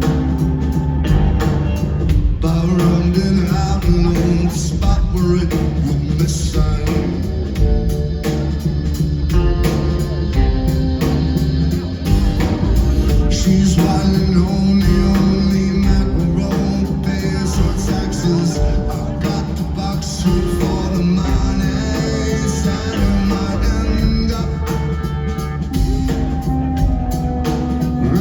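Live rock band playing a song at full volume, with a steady beat, heavy bass and guitar.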